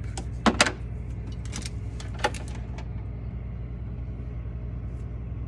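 Items being handled and moved about in a refrigerator drawer: a few sharp clicks and knocks, the loudest a double knock about half a second in and another a little after two seconds, over a steady low hum.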